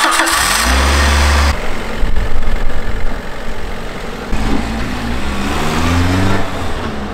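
Piaggio Porter kei truck's 1.3-litre engine running and revving as the truck pulls away, its pitch rising about six seconds in as it accelerates.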